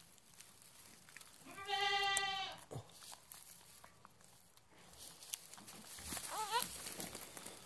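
Goat bleats: a loud, steady call about a second long starting about one and a half seconds in, then a shorter, wavering, higher bleat a little after six seconds in.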